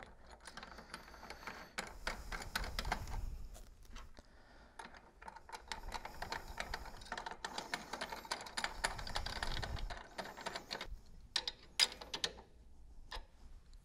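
Steel nuts and washers being run by hand onto the threaded studs of a pump's motor adapter, a quick patter of small metallic clicks and rattles. Near the end come a few sharper, separate clicks as a wrench is put to the nuts.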